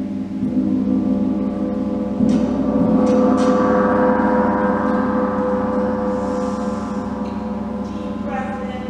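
A large gong ringing in a sound bath: a sustained, shimmering wash of many overtones that is struck again about two seconds in, swells louder, then slowly fades.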